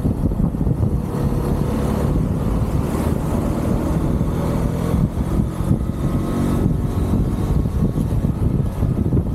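UM Renegade Commando 125 motorcycle's single-cylinder engine running while riding, with wind rushing over the handlebar-mounted microphone.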